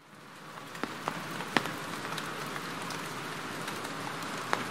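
Steady rain, fading in over the first second, with a few louder single drops ticking close by.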